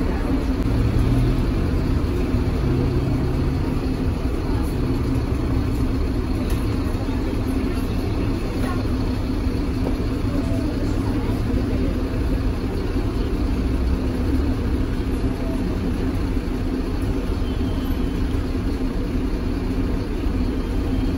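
Steady rumble of a Tatra KT4D articulated tram heard from on board as it runs along the line: wheels on rails and running gear, even throughout.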